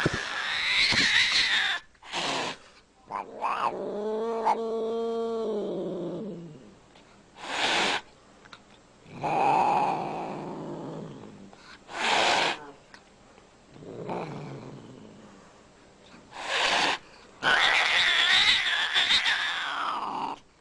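White Scottish Fold cat growling and yowling in repeated bursts, with one long wavering yowl about four seconds in: an angry cat warning off someone trying to pet it.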